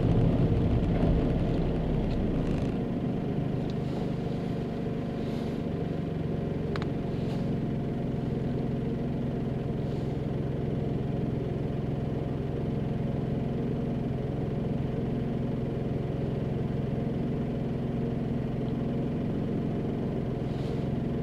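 Suzuki Alto Turbo RS's small three-cylinder turbo engine idling steadily with the car at a standstill, heard from inside the cabin. Road noise fades over the first few seconds as the car rolls to a stop.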